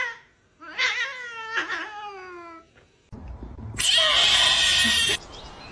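A domestic cat gives one long, drawn-out meow that slides down in pitch. About three seconds in, a loud rushing noise starts and lasts about a second and a half, then drops to a quieter hiss.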